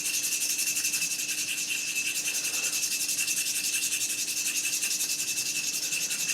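Steel valve shim being rubbed back and forth on an abrasive stone to lap its face down by hundredths of a millimetre, a steady scraping in quick, even strokes.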